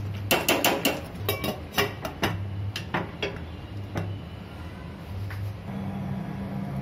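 A metal spoon clinking against a stainless steel pot while stirring thick gravy: a quick series of clinks over the first couple of seconds, then a few single knocks as a steel lid is set on the pot. A steady low hum comes in near the end.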